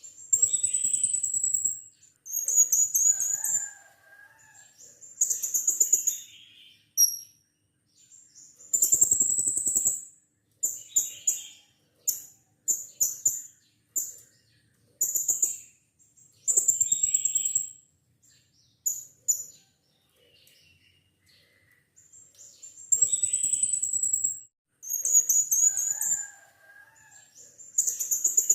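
Blue-crowned hanging parrot (serindit) calling: shrill, high-pitched trilled chirps in repeated bursts of one to two seconds, with short pauses between them.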